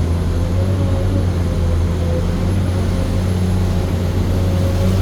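Komatsu PC210 excavator engine running steadily, a constant deep hum with a faint high whine over it.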